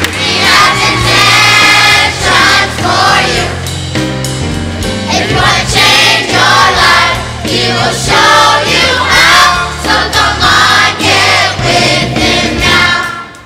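A group of voices singing a gospel song chorus together over backing music with a steady bass line; it drops off sharply at the very end.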